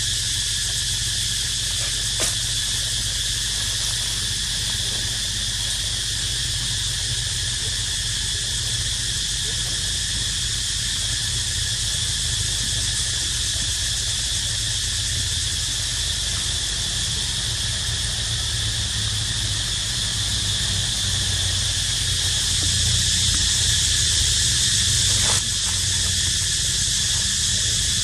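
Cicadas calling in a steady, unbroken high-pitched chorus, a little louder for a few seconds near the end.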